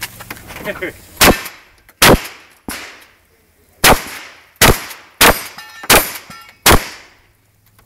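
Shotgun fired in a fast string of seven loud shots over about five and a half seconds, the last four roughly two-thirds of a second apart, with a weaker sharp bang between the second and third shots.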